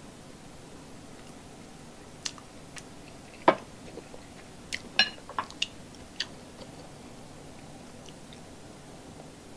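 A scatter of sharp clinks and knocks of glassware and a metal spoon against a glass serving bowl. The loudest knock comes about three and a half seconds in, followed by a quick cluster of ringing clinks around five seconds in.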